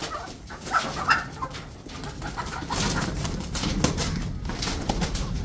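Hens making a few short calls about a second in, then a stretch of rustling and scuffling.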